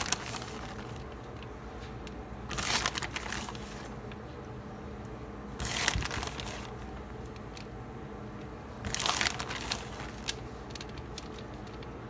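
Plastic bag of shredded cheese crinkling in three short bursts about three seconds apart, as a hand reaches in for cheese.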